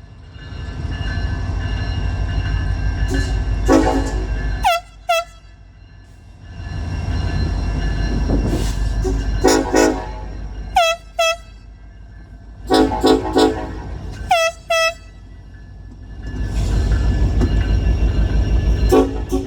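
Freight locomotive air horn sounding a series of short and long chord blasts, a horn show at a grade crossing. Between the blasts runs the low rumble of the passing Union Pacific freight train, which dips quieter twice, around a quarter and two-thirds of the way through.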